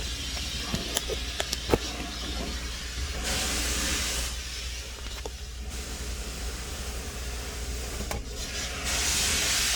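A few sharp clicks and clunks in the first two seconds, from the controls of a Jeep Wrangler JK being worked: parking brake, ignition key and shift levers. Two stretches of hiss follow, over a steady low rumble.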